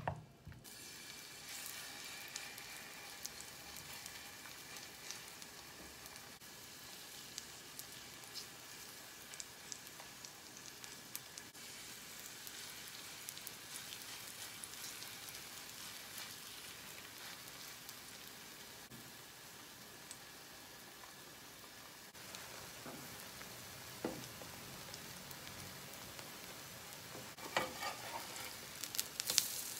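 Kimchi pancake batter sizzling in hot oil in a nonstick frying pan, with a spatula tapping and scraping against the pan now and then, a few sharper clicks near the end as a pancake is turned over.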